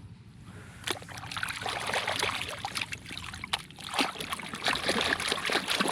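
Shallow water splashing and trickling, with many small sharp clicks and knocks, as toys are rinsed and handled in it. Quiet for about the first second, then busy with water.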